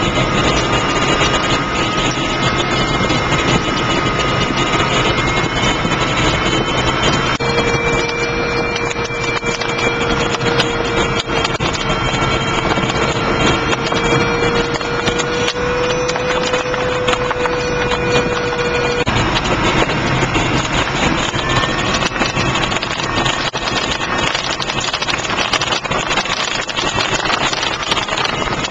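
Steady rush of air streaming past a Standard Cirrus glider's cockpit canopy in flight. Thin steady tones sound over it, stepping to a new pitch about seven seconds in and again at about nineteen seconds.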